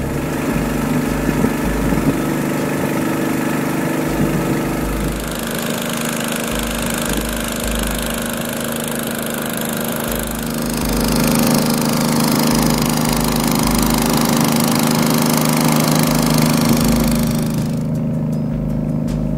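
Long-tail boat's engine running steadily under way, with a broad rush of wind and water over it; the hiss changes about ten seconds in and drops away near the end while the engine hum carries on.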